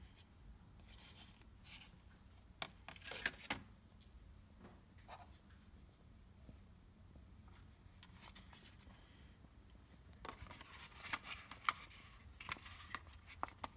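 Faint rustling and light tapping of hands handling paper eyelash packaging boxes, in a short cluster about three seconds in and a longer one near the end, over a low steady hum.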